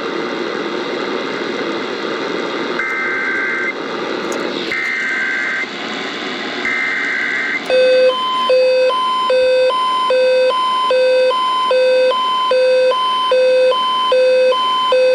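AM radio Emergency Alert System broadcast. After some hiss, three short bursts of SAME header data screech about a second apart, then a pulsing two-tone alert beep repeats about one and a half times a second, introducing a child abduction alert.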